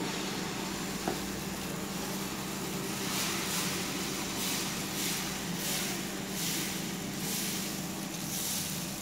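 Ladle swishing over a hot nonstick tawa as it spreads dosa batter in circles, a soft scrape roughly twice a second from about three seconds in, with a light knock of the ladle on the pan about a second in. Underneath runs a steady hiss and low hum.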